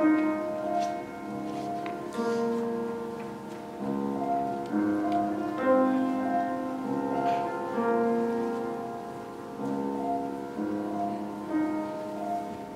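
Grand piano playing a slow classical passage.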